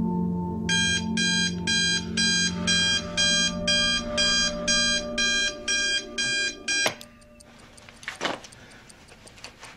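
Electronic alarm clock beeping in quick, evenly repeated high beeps, about two and a half a second. It is cut off suddenly with a click about seven seconds in.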